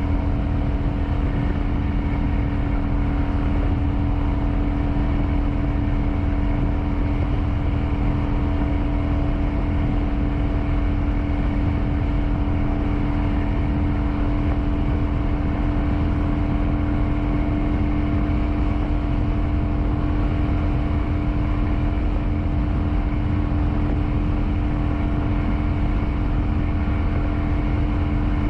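Kawasaki Vulcan 900's V-twin engine running at a steady cruising speed, its pitch holding constant, with wind rushing over the microphone.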